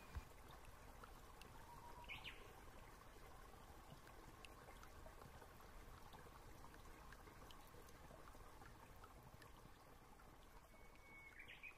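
Near silence: faint room hiss, with two brief, faint high chirps, one about two seconds in and one near the end.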